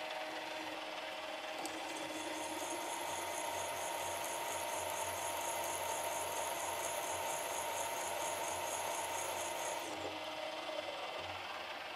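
Drill press running, its bit taking small cuts out of a crankshaft counterweight to remove weight for balancing. A steady motor hum carries a high, pulsing cutting sound from about two seconds in until near the end.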